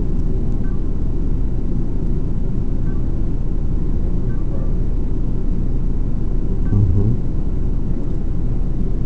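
Steady low rumble of background noise, with a brief low thump about seven seconds in.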